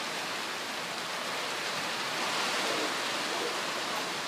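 Steady heavy rain falling, an even hiss with no break.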